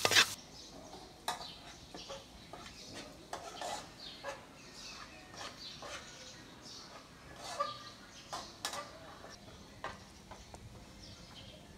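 Wok sizzling and stirring that cuts off just after the start, followed by a quiet outdoor background with scattered short bird chirps and clucks.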